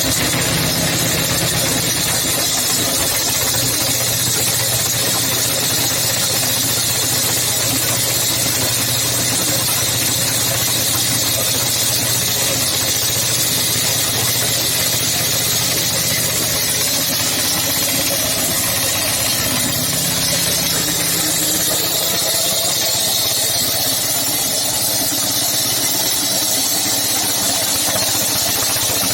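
Concrete cutter's engine running steadily under a strong high hiss, with a slight change in its pitch about two-thirds of the way through.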